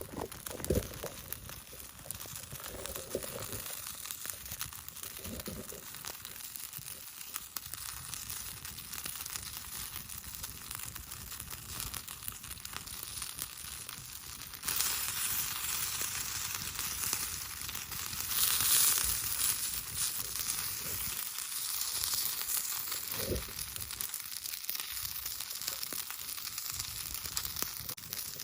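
Yakitori sizzling on a hot iron plate over a campfire. The sizzle jumps louder about halfway through, with a few soft knocks.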